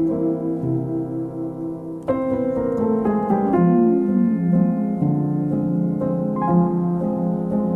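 Piano music: sustained chords with a rippling run of notes about two seconds in.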